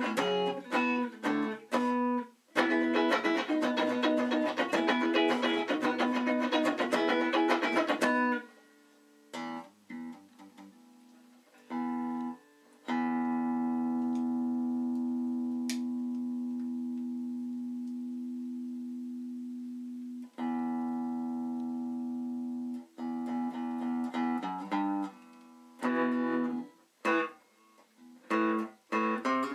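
Small semi-hollow body electric guitar of the Gibson CS-356 type being played. Fast strummed chords run for about eight seconds, followed by a few single notes. A chord then rings for about seven seconds, slowly fading, then another ringing chord, and quick picked notes near the end.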